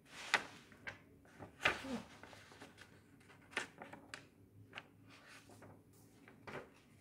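Scattered soft clicks and light knocks, about seven spread unevenly through a pause in the recitation, over a faint steady hum.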